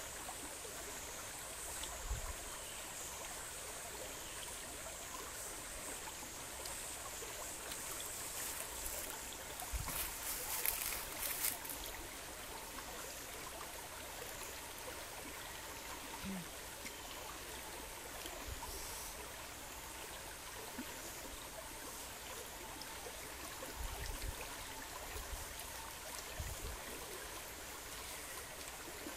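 Shallow stream running over rocks, a steady rush of water, with a cluster of short crackles about ten seconds in and a few soft low thumps.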